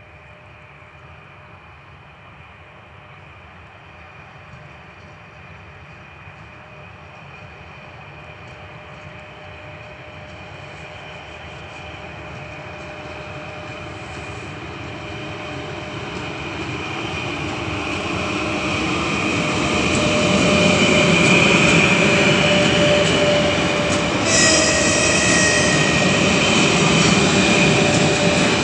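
2ES5K Ermak electric locomotives accelerating with a heavy freight train, growing steadily louder as they approach: a rumble of wheels on rail with a steady electric whine from the traction motors. A brief high-pitched whistle sounds about three quarters of the way through.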